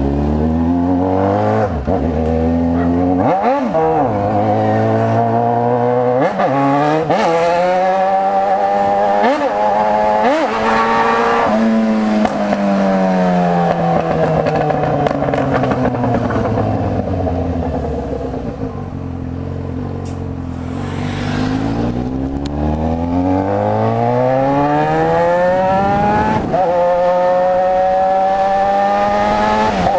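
Yamaha XJ6's 600 cc four-cylinder engine pulling away hard. Its pitch rises and drops at each of several quick upshifts in the first dozen seconds. It then falls slowly as the bike slows, climbs again, and shifts once more near the end to a steady cruise.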